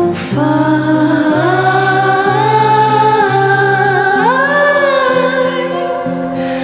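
A woman sings long held notes, stepping up in pitch a little past four seconds in, over slow electric guitar notes.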